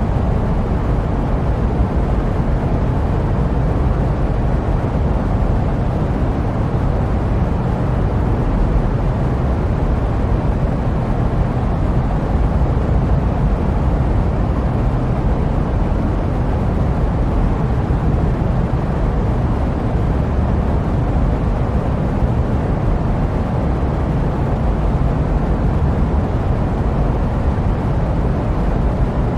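Steady jet aircraft noise used as white noise: an even, unbroken rumble, deepest in the low end, with a softer hiss above.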